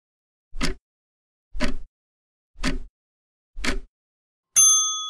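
Countdown timer sound effect: a short knock once a second, then a single bell ding near the end that rings on and fades, signalling that the time to answer is up.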